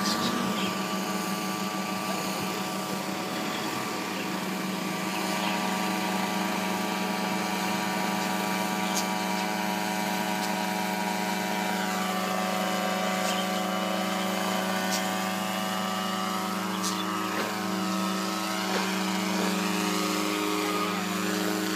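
Remote-controlled crop-spraying helicopter flying low on a spraying run, its engine and rotor giving a steady drone of many tones. The pitch dips and wavers gently a few times in the second half.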